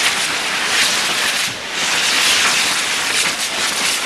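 Several hand-held canya firework rockets (coets de canya) burning at once, giving a dense, continuous fizzing hiss with scattered crackles. The hiss dips briefly about a second and a half in.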